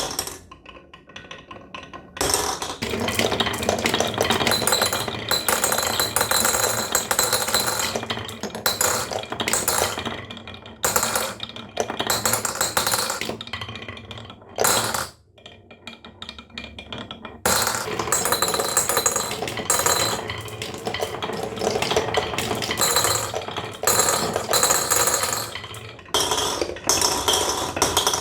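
Dense clattering and rattling of many small hard objects, in long runs that stop briefly and start again several times.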